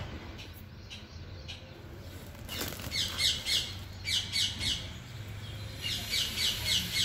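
A bird calling in runs of short, quickly repeated descending notes, about three or four a second. The runs come again and again from about two and a half seconds in.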